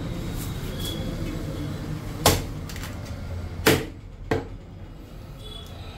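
Large knife chopping through fish on a wooden block: three sharp chops, the last two close together, over a low steady hum.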